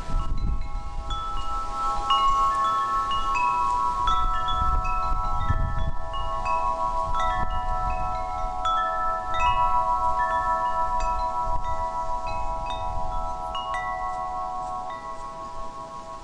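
Wind chimes ringing: many clear metal tones struck at irregular moments, overlapping and each ringing on for several seconds, over a low rumble. The ringing eases off a little near the end.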